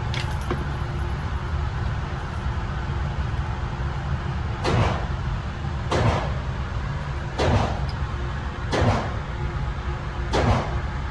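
Five gunshots from elsewhere on the outdoor range, evenly spaced about a second and a half apart, over a steady low rumble.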